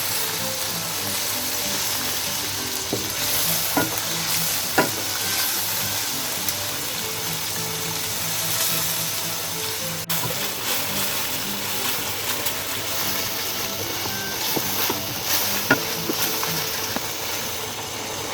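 Masala and yogurt sizzling as they fry in a karahi on high heat, being stirred, with a few sharp clinks of the spoon against the pan.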